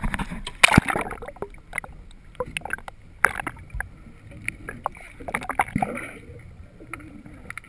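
Splashing as the camera goes into the sea, then muffled underwater sound heard through a camera housing: water rushing with irregular sharp clicks and knocks.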